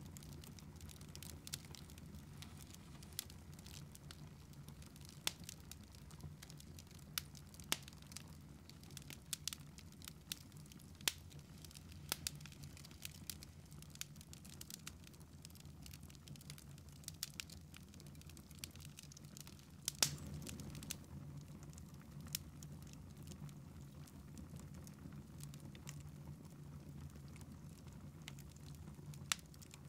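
Wood fire crackling in a fireplace: scattered, irregular pops and snaps over a faint low hum, with one louder pop about two-thirds of the way through.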